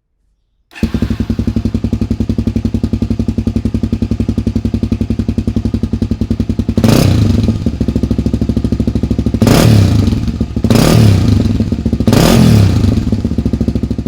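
Yamaha TT250R single-cylinder four-stroke engine running through a PROSKILL aftermarket silencer: a steady pulsing idle, blipped four times in short revs in the second half.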